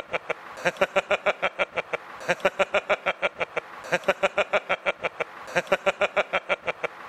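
A man laughing heartily in runs of rapid 'ha' pulses, about six or seven a second, each run broken by a short pause for breath.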